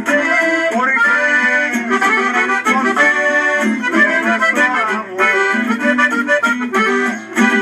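Accordion-led corrido music playing, with the accordion carrying the melody over lower accompanying notes.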